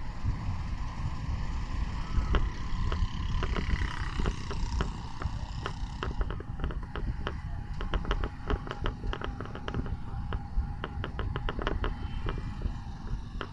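Motor-vehicle ride through street traffic: a steady low engine rumble with wind on the microphone, and a rapid, irregular run of rattling ticks that grows busier about halfway through.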